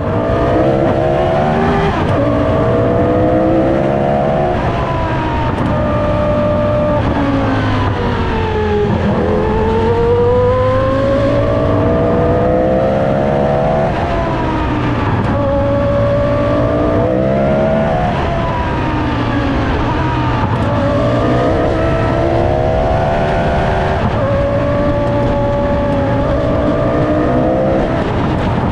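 Williams FW14B Formula One car's Renault V10 engine running hard, its pitch repeatedly climbing under acceleration and then dropping away.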